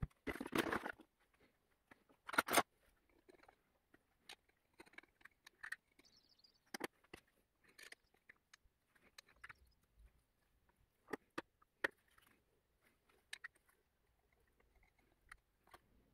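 A small brush scrubbing and scraping at caked carbon inside a clogged diesel EGR valve, with scattered clicks of the tool against the metal. The scrubbing is dense in the first second and loudest about two and a half seconds in, then thins out to short scrapes and ticks.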